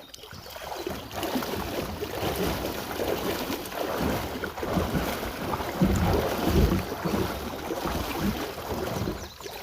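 Shallow river water rushing and splashing around legs and a kayak as the boat is walked upstream through a riffle, with wind buffeting the microphone in low rumbling surges around six to seven seconds in.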